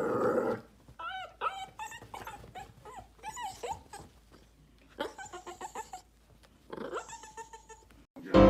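Small puppy yipping and growling in short, high-pitched bursts, loudest in the first half second.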